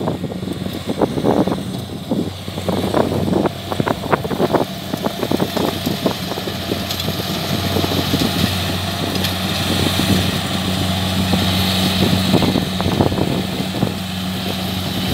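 Kubota DC-70 combine harvester's diesel engine running with a steady hum, with irregular clattering over roughly the first five seconds.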